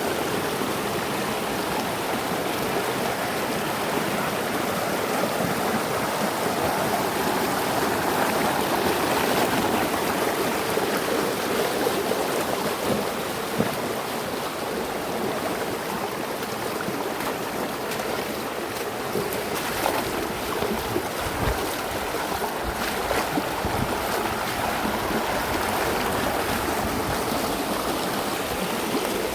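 Mountain river water rushing and splashing steadily over rocks. A few low thumps come about two-thirds of the way through.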